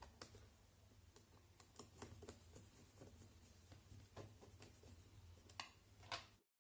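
Faint clicks and light taps of small plastic and metal RC car parts and a hex driver being handled while a shock absorber is fitted to the front suspension, with two sharper clicks near the end. The sound then cuts out abruptly.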